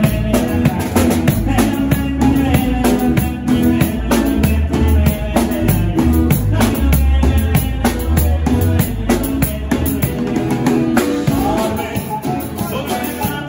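A live band playing loud music: a drum kit keeping a steady beat, with acoustic guitar and a singer on a microphone. The deep bass drops away about eleven seconds in.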